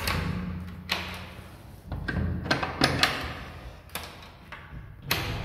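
Brass bolts and latch clacking and a panelled double door knocking and thudding as it is worked open: a string of sharp clunks, several close together in the middle.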